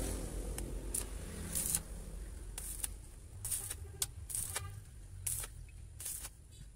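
Stick (arc) welding on thin steel body panel: the electrode arc crackling and spitting in short, irregular bursts.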